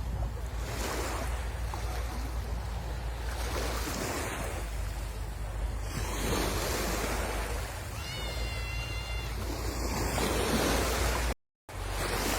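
Sea waves washing and breaking on a beach, with wind buffeting the microphone. About eight seconds in there is a short wavering high-pitched tone, and the sound cuts out completely for a moment near the end.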